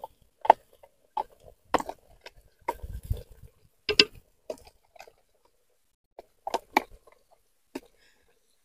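A steel spoon scraping and tapping thick ground paste out of a plastic tub into a clay cooking pot: a string of irregular short taps and clicks, loudest about half a second and four seconds in.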